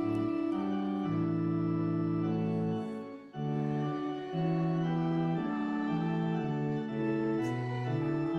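Organ playing slow, sustained chords, with a brief break between phrases about three seconds in.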